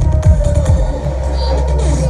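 Loud electronic dance music played through a massive Indonesian 'horeg' carnival sound system during a sound check. The fast kick-drum beat drops out early on, leaving a held deep bass note under a steady synth line.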